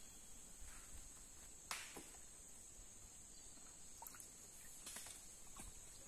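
Steady high-pitched insect chorus from the flooded forest, with a few soft knocks and dips of a wooden paddle against the canoe and water, the sharpest about two seconds in.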